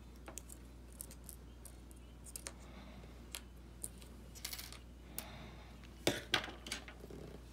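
Small scattered clicks and taps of fingers and metal parts being handled and pressed into place at the top of an iPhone 6s display assembly, with a louder quick cluster of clicks about six seconds in.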